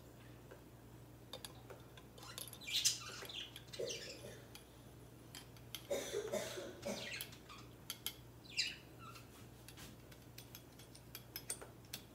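Metal parts of a homemade takedown .22 rifle being handled and fitted together: a few scraping, sliding rubs of metal on metal, then a run of sharp clicks near the end.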